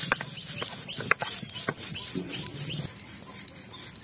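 A stone roller crushing dried red chillies and fenugreek and fennel seeds on a flat grinding stone (shil-nora). It makes repeated rough scraping strokes, with sharp little cracks as the dry pods and seeds break, and eases off near the end.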